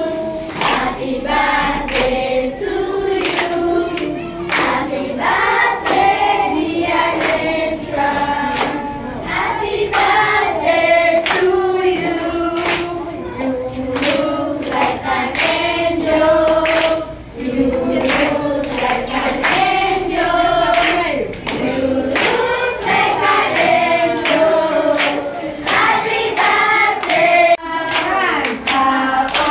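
A group of schoolchildren singing a birthday song together in chorus, clapping their hands along on the beat.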